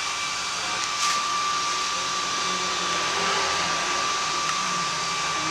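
Steady rushing air noise with a thin steady high whine, and a single soft tick about a second in.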